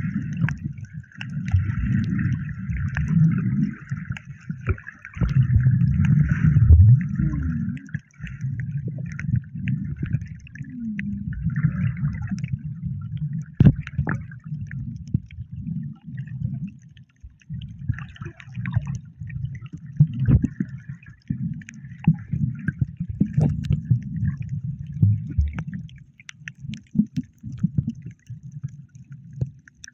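Water sloshing and gurgling, muffled as heard by a camera in the water, an irregular low rumble with many scattered clicks and knocks.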